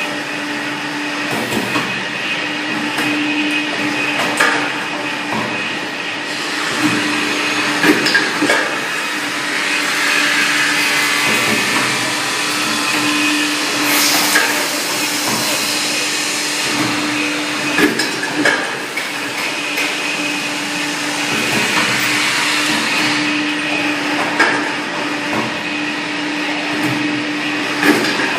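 MT200 automatic CNC hydraulic wire bending machine running, a steady hum under irregular clicks and clanks as it works the wire.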